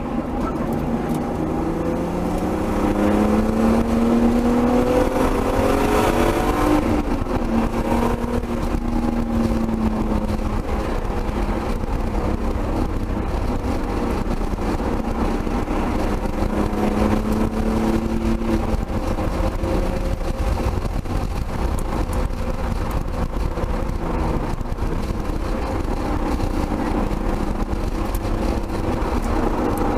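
Turbocharged BMW M3 straight-six heard from inside the cabin, accelerating hard on track. Its note climbs for about seven seconds, then drops and runs steadier, over a constant rushing noise.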